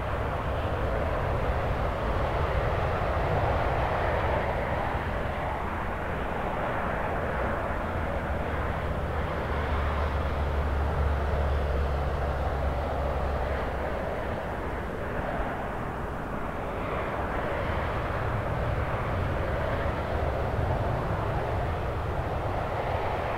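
Japan Airlines Boeing 767 on final approach to landing, its twin jet engines giving a steady, even noise, with a deep rumble beneath that grows stronger about halfway through.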